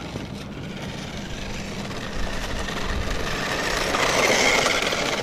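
Radio-controlled toy car driving over rough asphalt, its motor whining and wheels rattling, getting louder about four seconds in as it comes close.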